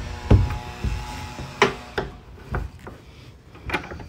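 Several dull knocks and thumps on the fiberglass deck and hatch lids of a bay boat, spaced irregularly about a second apart.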